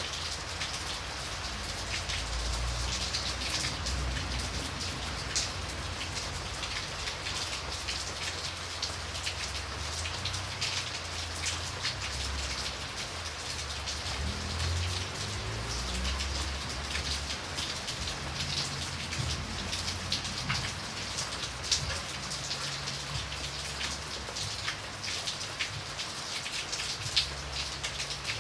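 Light rain falling: a steady hiss with many small drops tapping on surfaces, a few sharper drop hits standing out, over a low uneven rumble.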